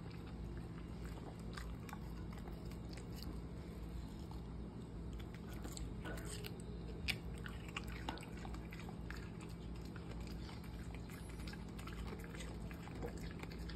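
Dog biting and chewing watermelon from a hand, with many short crunching bites scattered throughout and one sharper, louder crunch about halfway through.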